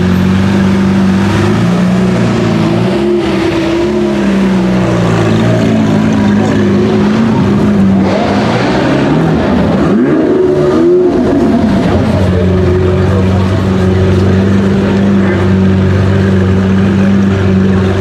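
Lamborghini Aventador SVJ's naturally aspirated V12 running at low revs as the car rolls slowly through an enclosed car park. Around halfway the revs rise and fall a couple of times in quick blips, then settle back to a steady low-rev note.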